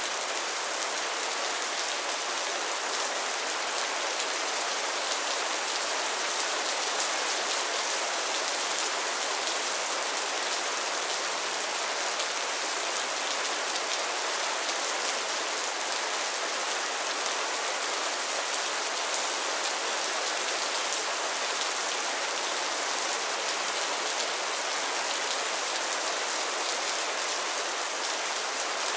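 Mild rain falling steadily on a roof: an even hiss of countless small drop hits, with no lulls or gusts.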